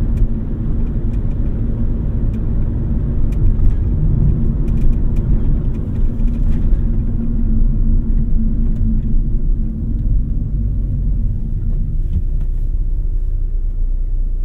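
Steady low rumble of a car's tyres and engine, heard from inside the cabin while driving. The lighter hiss above it fades about halfway through.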